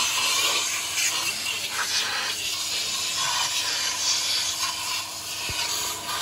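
Compressed-air spray gun hissing steadily as it blasts a cleaning mist over the bare deck of an engine block with the cylinder head removed.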